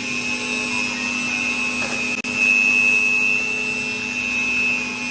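Electric hand mixer running steadily, beating chocolate cake batter, its motor giving a constant high whine over a low hum.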